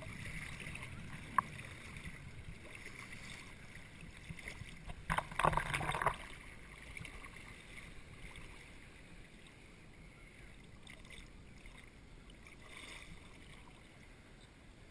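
Muffled sloshing of shallow surf water around a GoPro in its waterproof housing held at the surface, with a single sharp tick about a second in and a brief louder splash about five seconds in, then fainter water noise.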